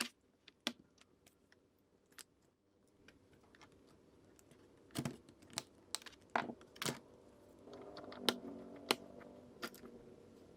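Irregular sharp clicks and taps of hands working on a laptop's keyboard and plastic case, busiest in the second half. A faint low hum runs for a couple of seconds under the clicks near the end.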